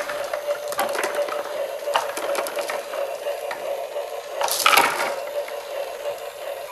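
Glass marbles clattering and clicking against each other and the tray as a hand rakes through a pile of them, in repeated bursts with the loudest about four and a half seconds in.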